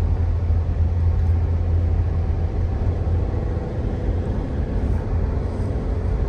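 Steady low drone of a moving car, with engine and road noise heard from inside the cabin.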